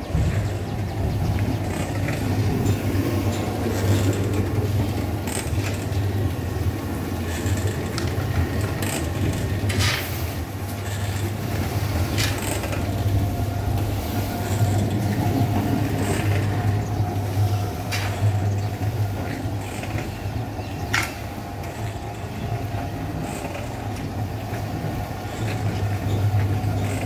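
Homemade mini cement mixer, a blue plastic drum turned by an electric motor on a steel stand, running with a steady low hum and rumble and a few sharp clicks.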